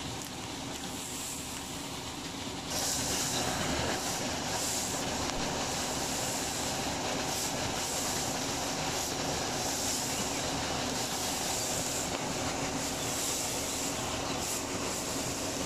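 Dry rice straw rustling and scraping as it is raked and gathered up by hand, getting louder about three seconds in. A steady low hum runs underneath.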